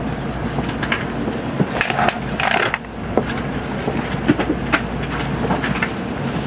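Steady low hum inside a stationary Shinkansen carriage, with scattered clicks and a rustle from about two seconds in.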